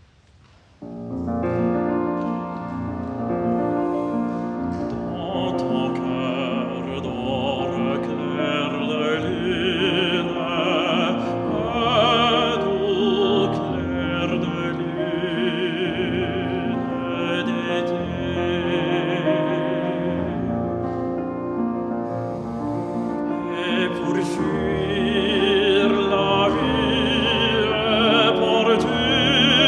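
A classical baritone singing a French art song in full operatic voice with vibrato, with instrumental accompaniment. The music begins about a second in.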